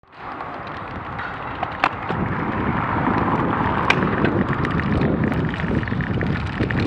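Bicycle rolling over cobblestones: a steady rumble from the tyres on the stones with many small rattling clicks, and wind on the microphone.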